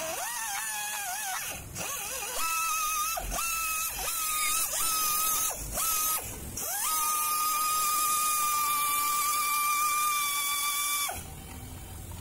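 Die grinder with a round grinding stone buffing the rubber of a motorcycle inner tube around a puncture, roughening it for a hot patch. It is a high whine with a hiss: wavering at first, then a few short bursts, then one long steady run that stops about a second before the end.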